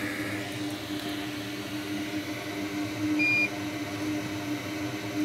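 Steady hum of a bench fume extractor's fan, with a single short high electronic beep about three seconds in.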